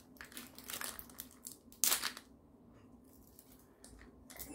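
Crinkling and crackling of thin plastic wrapping being picked and peeled off a small plastic surprise-toy ball, with the sharpest crackle just under two seconds in and quieter rustling after it.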